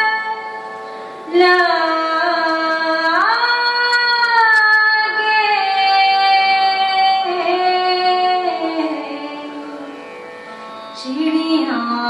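A woman singing slow, ornamented phrases in a raga-inflected style, her pitch sliding up and down between long held notes, over sustained chords on a Yamaha CP50 stage piano. One phrase begins about a second in and fades out before a new one starts near the end.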